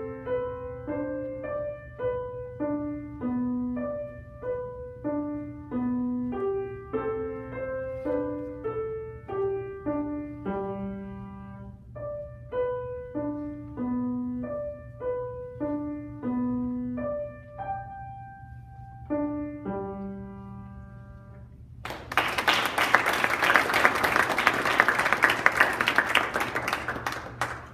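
Grand piano played solo: a light, evenly paced pattern of single notes over a recurring bass note, slowing into held closing notes. Then audience applause, louder than the piano, for about six seconds.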